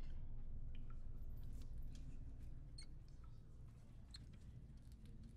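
Dark ambient sound bed: a low, steady rumble slowly fading, with a few faint scattered clicks and small drip-like ticks.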